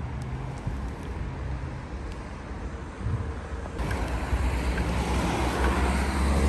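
Outdoor street noise with wind rumbling on the phone's microphone and distant traffic, growing louder about four seconds in as a road comes near.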